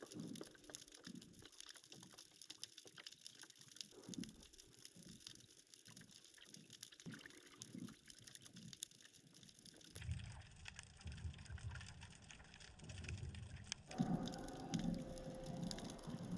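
Faint water sounds: small waves lapping and splashing in an uneven rhythm, with fine crackling. The character of the sound changes abruptly twice, about ten and fourteen seconds in.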